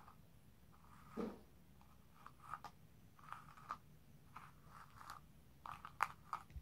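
Doll's hair being brushed with a small toy brush: a string of short, scratchy strokes at irregular intervals, with a dull knock about a second in and a sharper tap about six seconds in.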